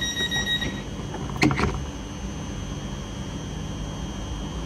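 Electric train's sliding passenger doors closing: a steady electronic warning tone stops just before a second in, then the doors shut with a bang about a second and a half in. A steady hum and low rumble follow.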